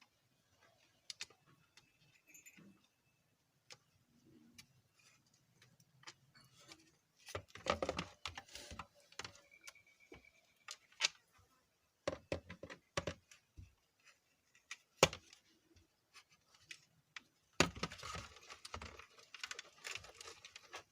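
Irregular clicks, clatter and scraping from small metal and plastic parts being handled while screws and a nut are fitted to a mixer grinder's switch and body, with a few louder bouts of rattling.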